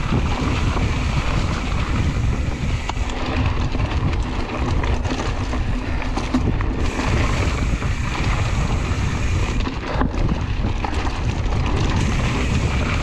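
Wind buffeting the microphone and a steady rumble from a mountain bike riding a cross-country dirt trail.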